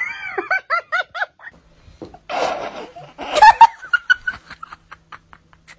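A cat chirping: a quick run of short, high, rising-and-falling calls, about four a second, for the first second or so. A noisy burst and more short, scattered calls follow.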